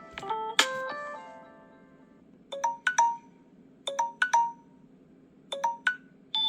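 Preloaded Samsung Galaxy S7 ringtones playing. A melodic run of notes dies away over the first two seconds. A short, bright chiming figure then plays three times, a bit over a second apart. Near the end a new ringtone starts with sustained, steady tones.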